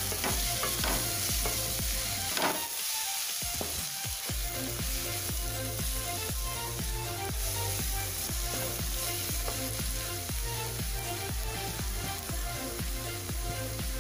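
Cabbage, tomato and capsicum sizzling in hot oil in a kadhai, while a spatula stirs and scrapes them around the pan in short strokes.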